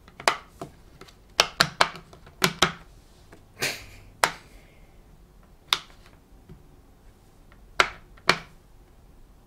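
Go Pop! Colorio silicone push-pop fidget toy, its bubbles pressed in with a finger one after another. About a dozen sharp pops come in quick runs of two or three, with pauses of a second or two between them.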